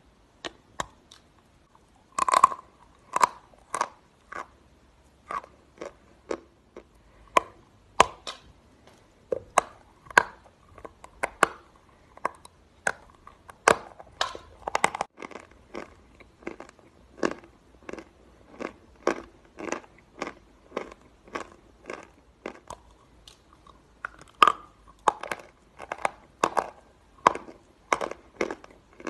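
Close-miked biting and chewing of a large block of chalk: a first loud crunching bite about two seconds in, then a steady run of crunches, roughly one to two a second, as the chalk is chewed.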